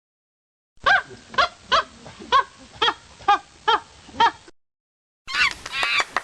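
Monkey calls: a run of eight hoots at about two a second that cuts off suddenly, then a shorter burst of quicker, higher-pitched chattering calls near the end.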